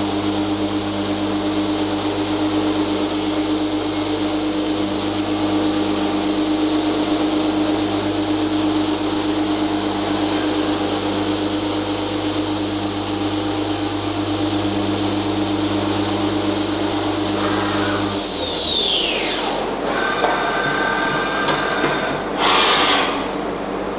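Spindle of a Wintec MV-40 vertical machining centre running at high speed with a steady high whine and hum, then winding down about three-quarters of the way in, its whine falling in pitch. Brief mechanical sounds and a short hiss follow near the end.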